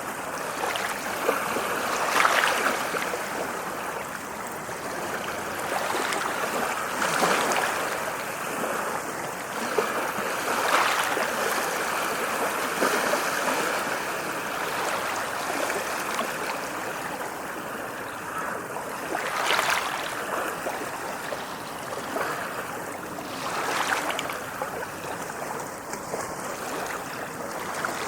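Ocean waves lapping against the shore: a steady rush of water, with a sharper splash every few seconds.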